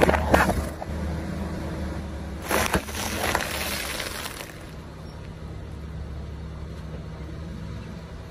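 A car creeping forward with its engine running low and steady while its tyre crushes things on the asphalt: sharp cracking of plastic lids right at the start, then from about two and a half seconds in a crinkling crush of a flat plastic sachet lasting about two seconds.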